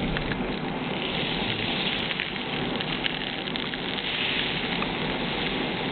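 Dried powder granules falling and pattering onto a hard surface, a dense spray of fine ticks, over a steady hum of plant machinery.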